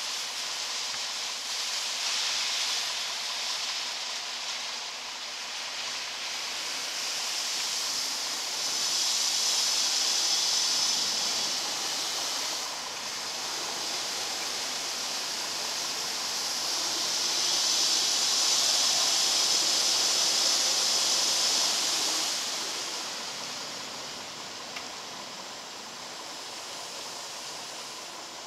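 Automated truck-wash water jets spraying over a semi truck's windshield and cab, heard from inside the cab as a steady rushing hiss. It swells louder twice as the spray passes and tapers off near the end.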